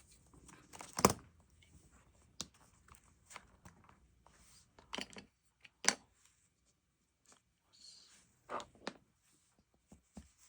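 Planner paper and stationery handled on a desk: scattered sharp taps and clicks with brief paper rustling, the loudest tap about a second in.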